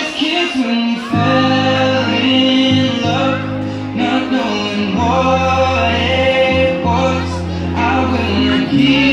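A song playing: music with singing over sustained bass notes that change every few seconds.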